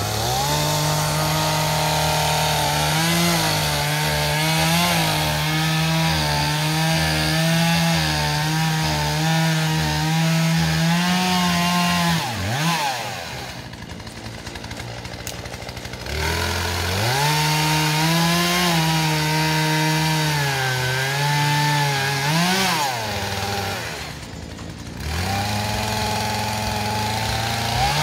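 Gasoline chainsaw cutting into a tree trunk at full throttle, its engine note wavering under load. It eases off to idle about halfway through and again near the end, then revs back up into the cut each time.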